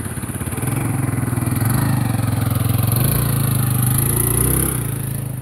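A motor vehicle's engine running, growing louder about a second in and easing off near the end.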